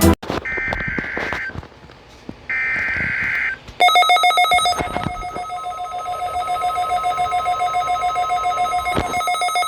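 Two one-second bursts of SAME digital header tones from a NOAA Weather Radio broadcast, picked up by a Midland WR-120 weather radio. The radio's alarm then starts about four seconds in, a loud, rapidly pulsing beep, with the station's steady warning tone coming in faintly under it about halfway through.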